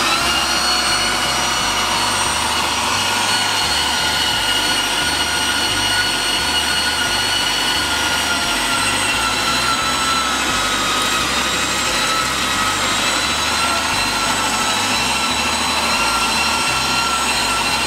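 Electric meat grinder running steadily, grinding pike fillet, pork fat and onion into mince; its motor whine dips slightly in pitch about ten seconds in as it takes load, then recovers.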